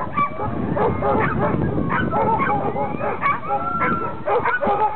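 A kennel full of tethered sled huskies barking, yipping, whining and howling all at once. It is a dense, unbroken chorus of many dogs, with short yips and longer rising and falling whines overlapping.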